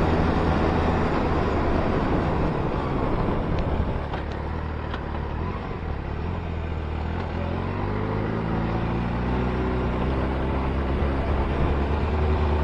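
Motorcycle engine running under way with wind rush. The engine eases off about four seconds in, then its pitch climbs steadily as it accelerates near the end.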